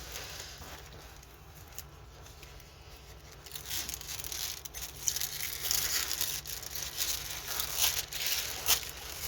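Thin plastic cover on a diamond painting canvas rustling and crinkling as it is handled, growing louder from about three and a half seconds in, over a faint low hum.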